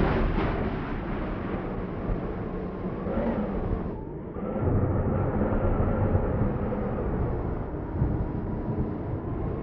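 Strong storm wind gusting and buffeting the microphone, a loud low rumble that eases briefly about four seconds in and then picks up again.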